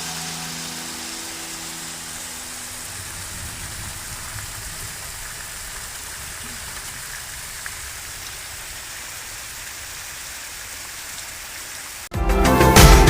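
Rain falling, a steady even hiss, with background music fading out over the first couple of seconds. Loud background music with a strong beat cuts in abruptly near the end.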